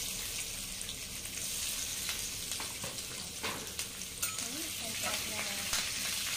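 Sliced onions and dried red chillies sizzling in hot oil in a nonstick kadai, a steady frying hiss as the tempering cooks. A spatula stirs through them near the end.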